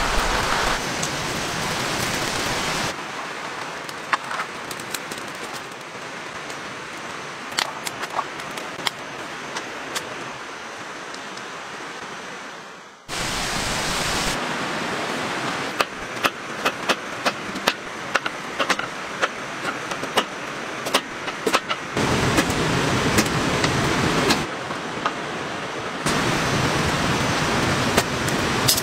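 Steady rain falling, a continuous hiss with scattered sharp taps of drops. The level jumps up and down abruptly a few times.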